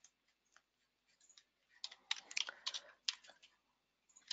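Faint computer keyboard typing: a few scattered keystrokes, then a quick run of them from about two seconds in.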